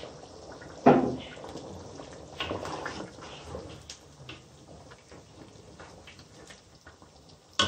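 Wooden spoon stirring thin meat curry in a steel pot: the gravy sloshes and the spoon scrapes. Sharp knocks against the pot come about a second in and near the end.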